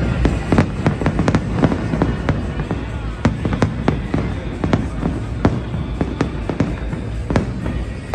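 Aerial fireworks display: shells bursting in rapid, irregular succession, dozens of sharp bangs and crackles over a continuous low rumble.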